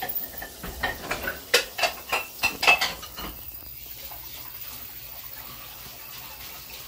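Several sharp clicks and light clinks in quick succession over the first three seconds, the loudest just before they stop, then only a low steady background.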